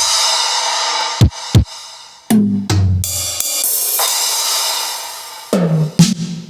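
Aroma TDX-15S electronic drum kit played: a crash cymbal rings out over a kick drum at the start, a few single drum hits follow, and a second crash about four seconds in fades away. Near the end come two tom hits that fall in pitch.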